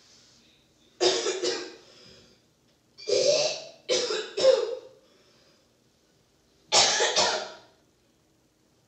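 A man faking a bad coughing fit: several bouts of loud coughs with short pauses between them.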